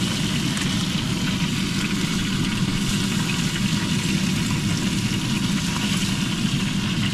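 A steady mechanical hum with a hiss over it, unchanging in level.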